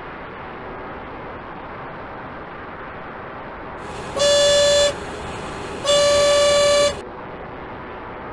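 Two loud horn honks, each under a second and about a second apart, starting about four seconds in. Underneath runs the steady whir and wind rush of an RC model airplane's electric motor and spinning propeller, heard from its onboard camera.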